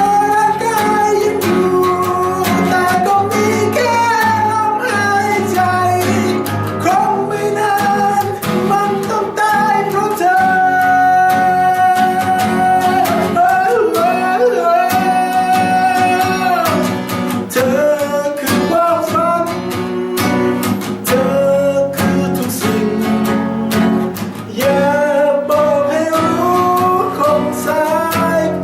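Acoustic guitars playing an instrumental break: a lead melody of held, gliding notes over strummed chords.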